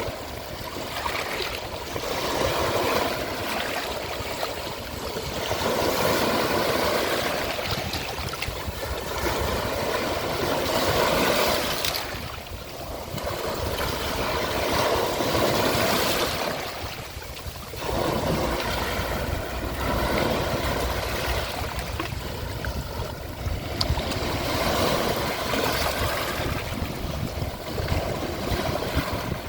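Ocean surf washing up a shore: a steady rush of breaking waves that swells and ebbs every few seconds, with a couple of brief lulls between the surges.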